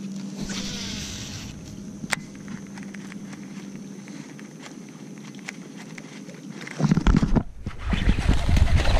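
A cast with a baitcasting rod: the reel's spool whirs briefly as the lure flies out, and a sharp click follows about two seconds in, over a steady low hum. From about seven seconds on, loud rumbling noise takes over.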